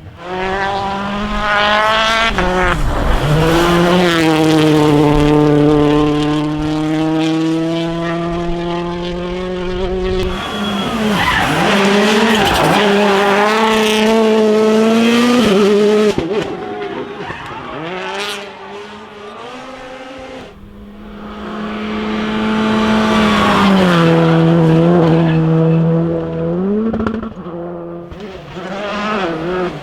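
Rally cars driven flat out on a stage, engines climbing in pitch and dropping back at each gear change, then holding high revs, one car after another in short clips that cut abruptly. A stretch in the middle is rougher and noisier, with the engine less clear.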